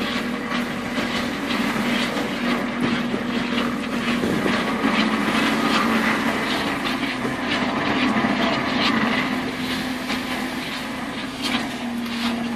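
Crab-fishing boat's engine running with a steady hum, under irregular knocks and clatter throughout.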